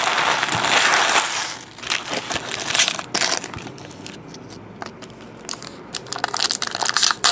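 Trading card pack wrapper being crumpled and crinkled, a loud stretch for the first second and a half, then scattered crackles and clicks as the cards are handled, with more crinkling near the end.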